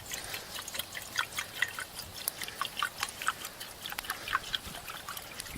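Water being poured into a cooking pot, heard as a run of short, irregular drips and splashes.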